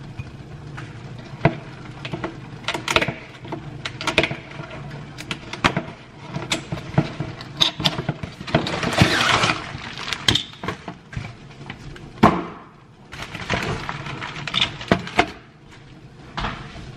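A cardboard box being opened and its contents handled: flaps pulled open and packaging rustling, with many sharp knocks and clicks. The longest stretches of rustling come about halfway through and again a few seconds later.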